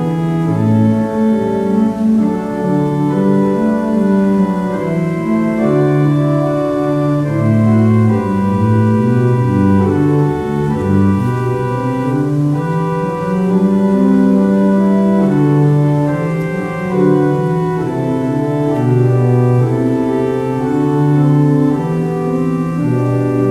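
Organ playing a slow piece in sustained, overlapping chords, the notes held and changing every second or so with a moving bass line.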